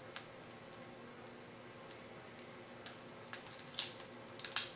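Light clicks and small taps of a laptop display cable connector being handled and slid into its socket on the back of an LCD panel. A few clicks are spread out, then a quick cluster of sharper ones comes near the end.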